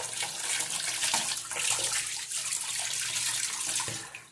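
Kitchen tap running, the stream splashing onto a slotted skimmer being rinsed in a stainless steel sink. The splashing dies down about four seconds in.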